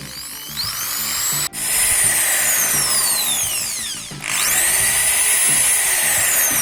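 Small electric drill with a 1 mm bit drilling holes in a printed circuit board: a high motor whine that rises as it spins up, falls away, and rises again about four seconds in, with a short break about a second and a half in. Background music plays underneath.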